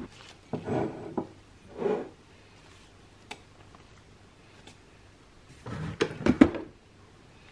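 Tea things being handled on a kitchen counter: soft rustles and knocks in the first two seconds, a couple of light clicks, then a quick run of sharp clinks and knocks from ceramic mugs and utensils about six seconds in.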